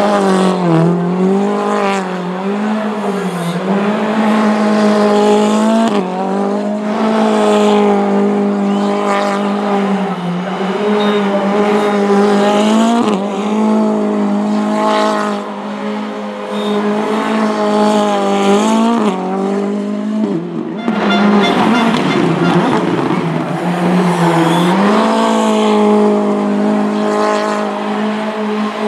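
Ford Fiesta R5 rally car's turbocharged four-cylinder engine, running on LPG, held at high revs through donuts and burnouts, with the tyres spinning and squealing on the tarmac. The revs stay high and steady, dipping and climbing again several times, with a longer lower stretch about two-thirds through before they rise again.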